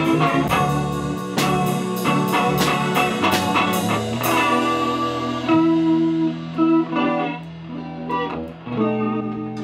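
Rock band playing: electric guitar over drums, with cymbal hits about twice a second. About four seconds in the drums stop and the electric guitar plays on alone in held notes.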